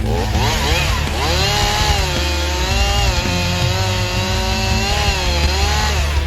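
Two-stroke chainsaw cutting into a tree trunk, its engine note dipping under load and recovering near the start and again near the end, running steady in between.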